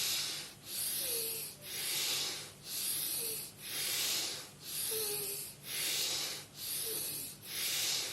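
Forceful breathing through one nostril with the other pressed shut, single-nostril pranayama: a steady rhythm of quick in-and-out breaths, each a rush of air through the nose lasting under a second, about one a second.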